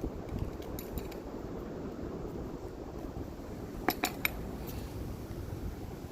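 Metal clinking against metal: three quick ringing strikes about four seconds in, with a few faint clicks earlier, over steady wind rumble on the microphone.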